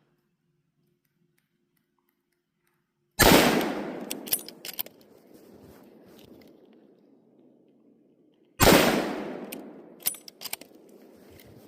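Two loud gunshots from a deer-hunting shotgun or slug gun, about five and a half seconds apart, each rolling away in a long echo through the woods, with a few sharp clicks after each shot.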